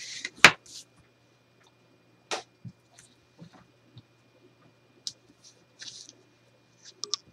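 Hands handling adhesive tape and a Tyvek strip on a cutting mat: irregular crinkles, rustles and taps as the tape is pulled, its backing peeled and pressed down. The loudest is a sharp tap about half a second in.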